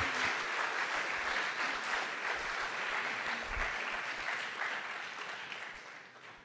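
Audience applauding, a dense steady clapping that gradually fades and dies away near the end.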